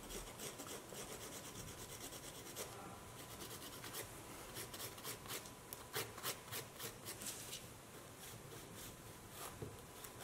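Hand nail file rasping back and forth over a UV gel nail in quick, faint strokes, filing down the gel. The strokes come thickest in the middle and thin out near the end.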